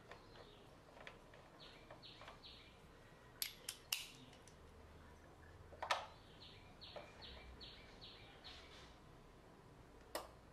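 Faint clicking of a socket ratchet tightening the hold-down bolt of an ignition coil pack: two runs of light ticks at about three a second, with a few sharper metal clicks of the tools in between.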